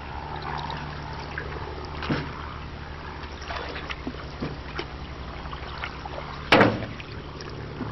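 Canoe paddling: water trickling and dripping off the paddle between strokes, with scattered light knocks and one loud, sharp thump about six and a half seconds in.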